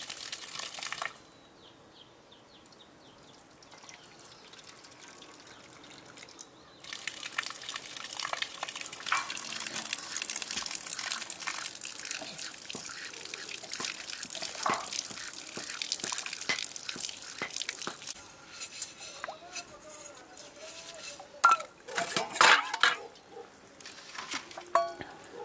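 Water splashing and trickling with many small drips for about ten seconds, followed by a few loud sharp knocks near the end.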